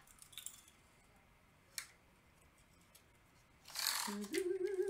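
Quiet handling with a faint tick about two seconds in. Near the end comes a brief rustling swish as a small retractable tape measure is pulled out over the canvas, while a voice hums a wavering note.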